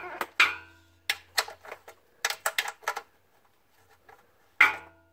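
Metal clicks and clinks of a 3/8 socket ratchet being fitted onto and worked on a small bolt holding a cover in place: separate sharp clicks with pauses between, a quick run of about six a couple of seconds in, and a loud clack near the end.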